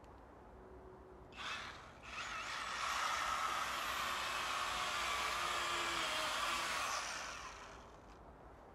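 Handheld power tool working into a pine log: a short blip of the trigger, then the motor spins up and runs steadily under load for about five seconds before winding down.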